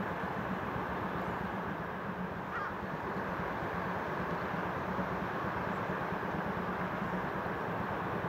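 Distant double-headed steam train, a C11 and a C10 tank locomotive, working along the far bank, heard as a steady rumble blended with the rush of the river's shallows.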